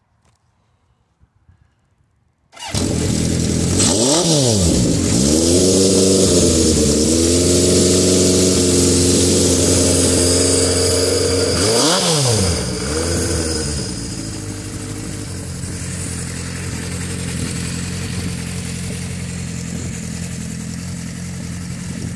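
Honda CB750F four-cylinder engine, bored out to 836 cc, with K&N cone filters and a Delkevic 4-into-1 header, starts suddenly about two and a half seconds in. It is blipped about four seconds in and again near twelve seconds, runs at a raised idle between, and settles to a lower steady idle from about fourteen seconds.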